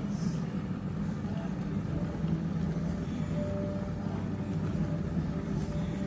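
Glass electric kettle at a rolling boil: a steady low rumble of water bubbling hard.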